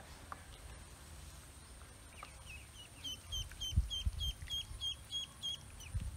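Ducklings peeping: a run of about ten short, evenly spaced high peeps, three or four a second, starting about halfway through, with a few low bumps underneath.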